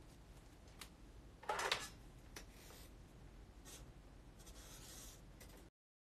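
Folded paper lottery slips being handled and unfolded: soft rustles and ticks, with one louder crinkle about a second and a half in. The sound cuts off suddenly to silence near the end.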